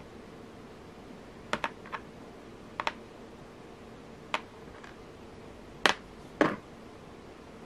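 Light, scattered clicks and taps of porcelain beads and small metal bead caps being handled and set down on a tabletop, about eight in all, some in quick pairs, the two loudest just before the end.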